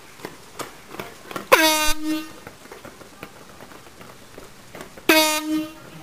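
Two short, loud blasts of an air horn at one steady pitch, the first about a second and a half in and the second about five seconds in.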